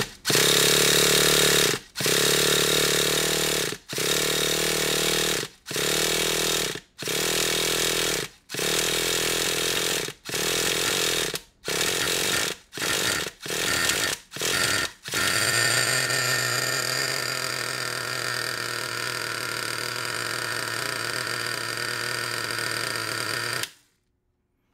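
Traxxas Revo 3.3 nitro engine being cranked by its starter in repeated bursts of one to two seconds, the bursts getting shorter toward the end. About 15 seconds in it catches and runs steadily for some eight seconds, then cuts off suddenly.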